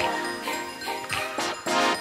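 Background music: held notes with a few sharp percussion hits in the second half.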